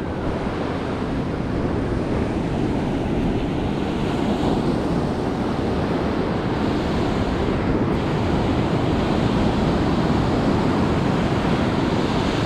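Ocean surf breaking and washing up a sandy beach, a steady rushing noise.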